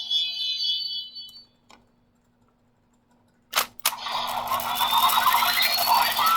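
Kamen Rider Geats DX Shinobi Raise Buckle toy playing electronic sound effects through its small speaker. A ringing electronic tone dies away in the first second and a half, two sharp plastic clicks of the buckle's mechanism come about three and a half seconds in, and then a busy burst of electronic effects and music starts, with a rising whine.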